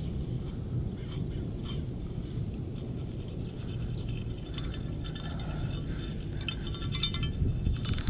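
Beach sand being scraped and sifted through while searching for a small find lost in the dug-up pile: a scratchy rasping that gets busier in the second half, over a steady low rumble.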